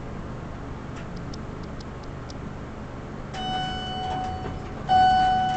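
Otis elevator car lantern chime ringing twice, the same single tone each time, about a second and a half apart, the second louder. Two chimes mark a car set to travel down. Before the chimes there are a few light clicks over the steady hum of the car.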